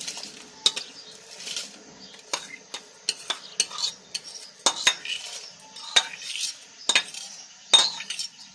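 A spoon knocking and scraping against a bowl as rice is scraped out of it into a pot of milk: a string of irregular sharp clinks with short scraping sounds between them.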